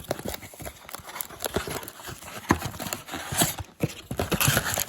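Plastic shrink-wrap being picked at and pulled off a cardboard trading-card box by hand, with irregular clicks and knocks of the box being handled and short bursts of crinkling cellophane.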